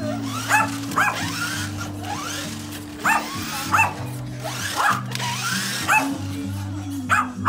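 Small dog barking repeatedly in short, sharp, high yaps, roughly one or two a second, while playing with a remote-control truck. Background music with steady bass notes runs underneath.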